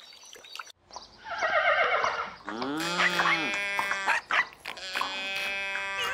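Cartoon farm-animal calls one after another: a quick warbling cry falling in pitch, then a call that rises and falls, then held tones.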